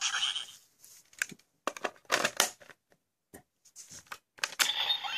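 Plastic clicks and rattles of a Matsubokkuri Lockseed toy being handled and seated in a Sengoku Driver toy belt, ending in a sharp snap as the lock is closed. Right after the snap, the belt's electronic standby sound begins. At the very start the lockseed's own electronic call is just dying away.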